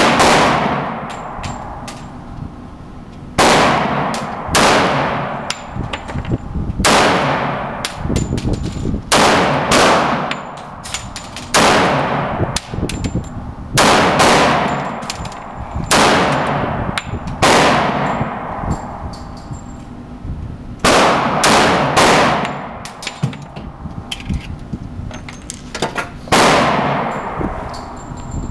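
A 1911 pistol firing a long string of about twenty shots, roughly one a second, each followed by a long echoing tail, with a pause of a few seconds near the end.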